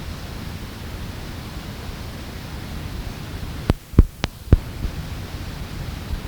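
Steady low rumble and hiss of a cassette field recording. A little past halfway come four sharp clicks in quick succession, and the background drops away between them.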